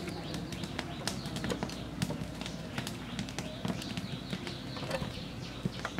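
Metal spoon scooping wet rice out of a large aluminium pot of water onto a steel plate: scattered light clinks and taps of metal on metal, with small splashes of water.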